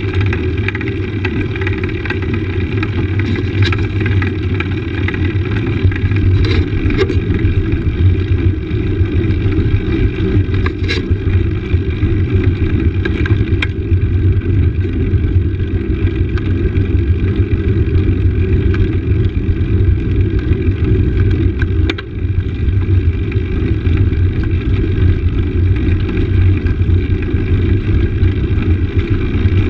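Steady low rumble of wind and road vibration picked up by a camera mounted on a road bike's handlebars while riding over paved streets, with a few short clicks and knocks.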